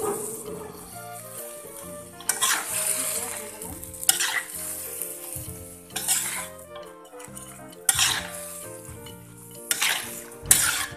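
A metal spatula scraping and tossing vegetables and chicken in a wok, with sizzling, in loud surges about every two seconds.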